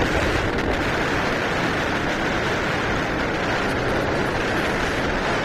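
Steady rush of wind and road noise from riding on a moving motorcycle, the wind blowing over the microphone.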